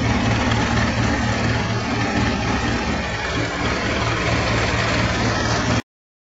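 Ustad No. 3 three-sieve rice huller running steadily, with milled rice grains pouring from its chute into a jute sack. It is a continuous machine drone with a low pulsing hum that cuts off abruptly near the end.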